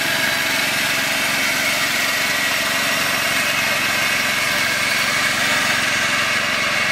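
John Deere riding lawn tractor's small engine running steadily under load as it tows a second, unpowered garden tractor on a strap.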